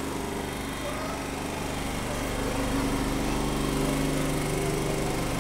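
A small engine running steadily with an even mechanical drone, growing a little louder about three seconds in.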